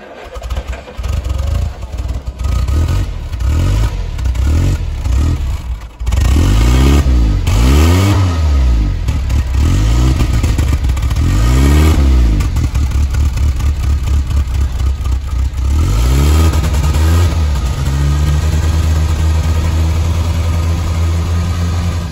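Land Rover Series III's 2.25-litre four-cylinder petrol engine running on its first start after standing for over 15 years. It runs unevenly at first, is then revved up and down several times, and settles to a steady fast idle near the end.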